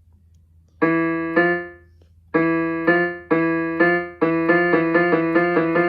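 Piano playing a short sound-effect melody picked out note by note. There are two notes about a second in, then after a brief pause a run of single notes that gets quicker near the end.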